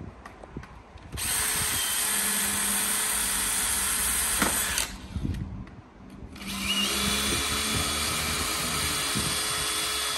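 Cordless drill with a twist bit boring pilot holes through a uPVC window frame: two steady runs, the first from about a second in to nearly five seconds, the second starting about six seconds in with a short rising whine as the motor spins up.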